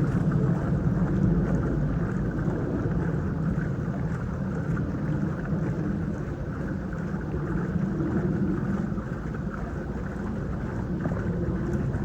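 A motor running steadily throughout, with its level swelling and easing slightly.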